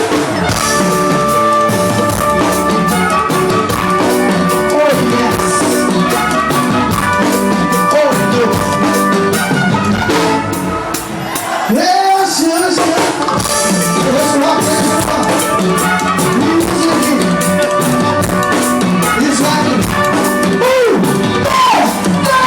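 Band music: a drum kit keeps a steady beat under sustained instrument notes and singing, with a short drop in level about halfway through.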